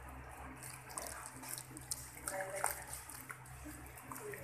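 Water spraying from a handheld salon shower head onto hair and splashing into a backwash basin as shampoo is rinsed out, with many small splashes.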